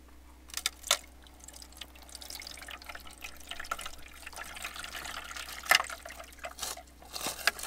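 Water with bits of ice poured from a reusable bag into the plastic water tank of an Arctic Air Pure Chill evaporative cooler, splashing and trickling, with a few sharp clicks.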